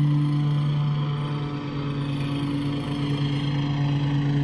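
Self-propelled walk-behind lawn mower's engine running steadily while mowing.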